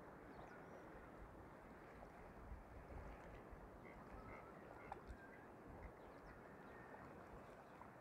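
Near silence: faint steady outdoor noise with low rumbling swells, and a few faint short chirps about halfway through.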